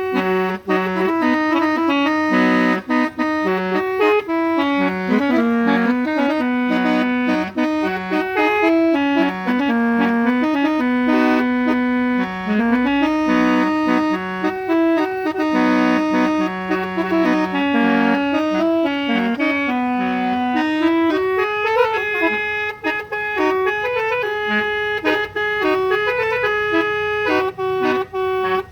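Old-style musical horn playing a tune: held, reedy notes stepping up and down, sometimes two at once, without a break.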